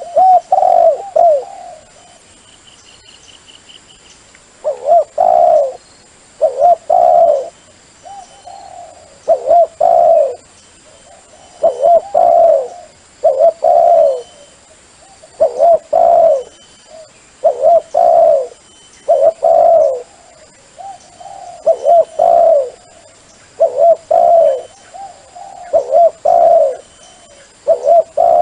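Dove cooing over and over, in short phrases of a few rounded notes that come every second or two, with a pause of a few seconds near the start.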